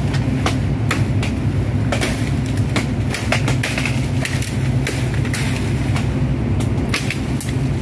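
A steady low machine hum that does not change, overlaid by frequent sharp crackles of leaves and twigs.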